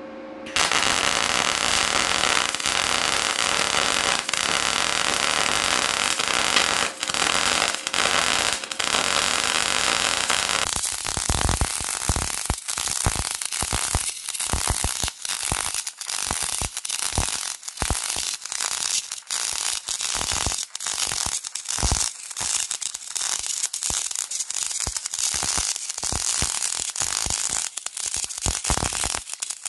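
Gas-shielded MIG/MAG welding arc from an Andeli welder on thin sheet steel: a dense crackling hiss that strikes about half a second in and runs unbroken for some ten seconds, then breaks into rapid short bursts with brief gaps.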